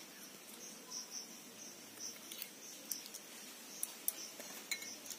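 Faint, steady chirping of crickets in the background, coming in even pulses, with a few light clicks as baking soda is spooned into the batter bowl.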